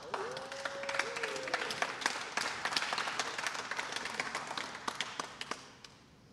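Crowd clapping and cheering, with one voice holding a long call at the start; the applause dies away just before the end.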